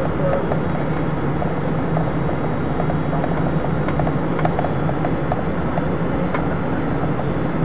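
Steady jet airliner cabin noise on approach: engine and airflow noise with a low, even drone and a few faint ticks.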